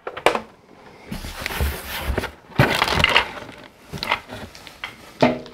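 Cardboard packaging rustling and scraping as the inner box is handled and lifted off a plastic toy spaceship, with a few sharp clicks and knocks.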